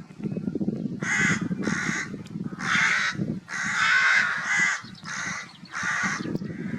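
A crow cawing repeatedly, about seven harsh calls in quick succession starting about a second in, over a steady low rumble.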